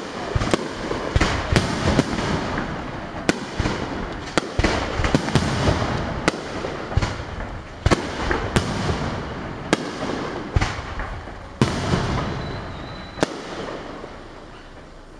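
Aerial firework shells bursting in quick succession: sharp bangs every second or so over a constant rush of noise. The barrage thins out and grows quieter over the last few seconds.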